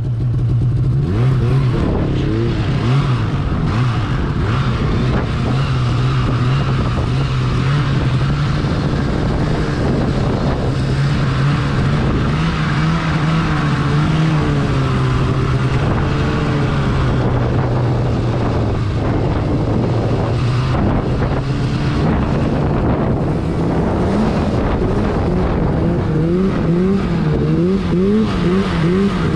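Arctic Cat mountain snowmobile engine running hard while riding through deep powder, its pitch rising and falling with the throttle. The engine is loud throughout.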